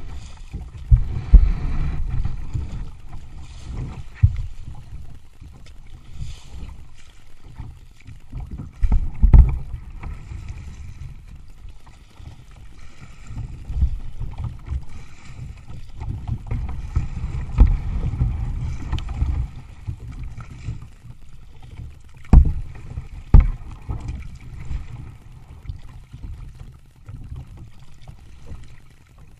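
A kayak moving down a flowing river: water rushing and lapping against the hull with a steady low rumble. A few sharp knocks break through, two of them close together past the middle.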